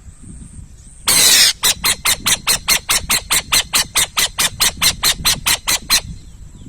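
Owl calling: one harsh screech about a second in, then a rapid run of about twenty short harsh rasping notes, roughly four to five a second, which stops suddenly near the end.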